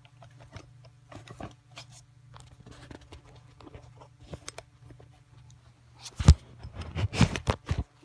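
Paintball magazine handled by hand: small clicks and rattles, a sharper knock about six seconds in, and a burst of clattering near the end.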